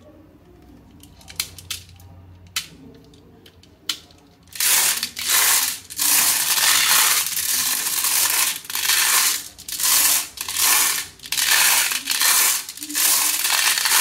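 A few sharp single clicks of glass marbles dropping into a toy truck's plastic cage, then, from about four and a half seconds in, a load of glass marbles rattling inside the cage as the truck is shaken, in loud bursts about once a second.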